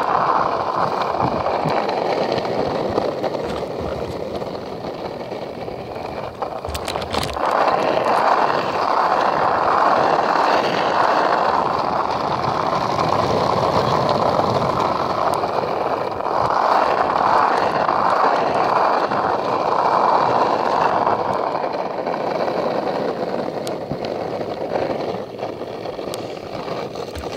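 Longboard wheels rolling on asphalt: a steady rolling rumble that swells and eases with speed, with a brief clatter about seven seconds in.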